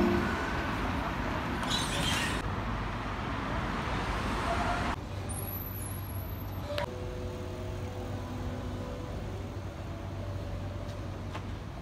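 Melbourne trams at a platform stop: a tram moving past with loud rolling wheel and motor noise for about five seconds, a brief hiss about two seconds in. The noise drops suddenly to the quieter steady electrical hum of a Z3-class tram at the platform, with a single click partway through.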